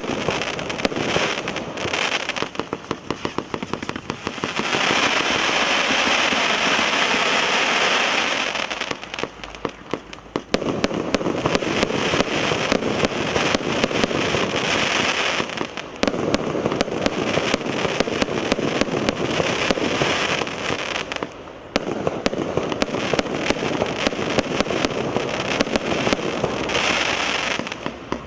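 Firework battery (multi-shot cake) firing continuously: a rapid string of launch pops and bursting reports with dense crackle, easing briefly about ten seconds in and again around twenty-one seconds before picking back up.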